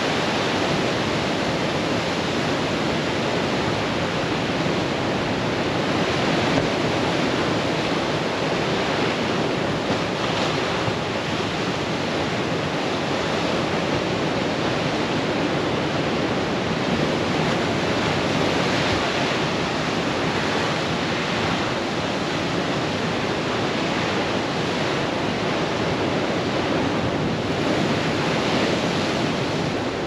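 Sea waves breaking on rocks and washing across a rock pool: a continuous rush of surf that swells slightly every several seconds.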